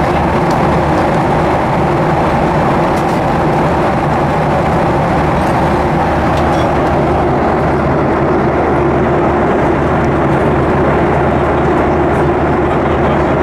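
Cabin noise of a Boeing 737-800 at cruise: a steady rush of air along the fuselage over the low hum of its CFM56 engines, heard from a window seat.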